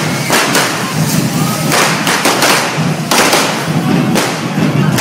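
Fireworks spewing from a correfoc fire-breathing dragon figure: a continuous hiss of spraying sparks broken by many irregular bangs and cracks.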